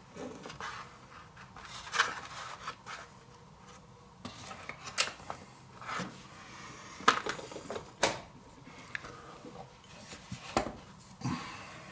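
Handling noise from a wooden-based violet ray unit being set down on a paper-covered table and its cloth-covered cord laid out. Scattered rubbing and rustling with a few sharp wooden knocks, the loudest about two seconds in and again around seven and eight seconds in.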